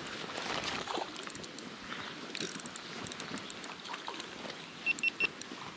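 Creek water running steadily, with a few faint ticks and, about five seconds in, three short high peeps in quick succession.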